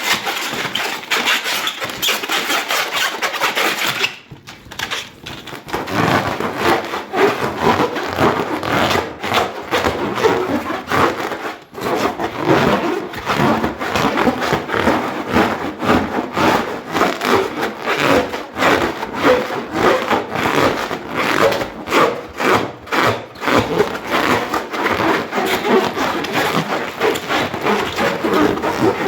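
Hands rubbing a rubber balloon in quick back-and-forth strokes, a continuous rubbing with a short pause about four seconds in.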